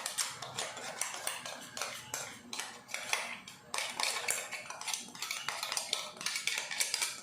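A metal spoon scraping and knocking ground flaxseed powder out of a small steel mixer-grinder jar onto a plate: a quick, uneven run of scrapes and clinks.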